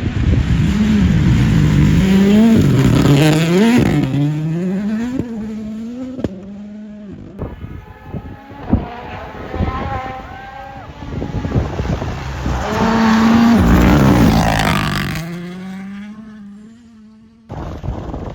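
Rally car engine at full throttle, its pitch climbing and dropping back through several quick upshifts. It then eases off with a few sharp cracks, and a second loud full-throttle stretch follows that falls in pitch and fades away.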